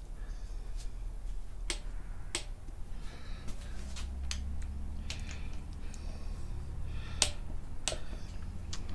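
Torque wrench on the idler pulley bolts of a Subaru EJ25 engine giving sharp clicks as it reaches its set torque of about 28.8 ft-lb, the loudest in a pair about two seconds in and another about seven seconds in, with lighter ticks between.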